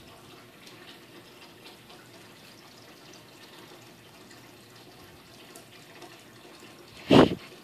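A cat licking its fur and paw: faint, wet licking sounds. About seven seconds in there is one short, loud rush of noise lasting under half a second.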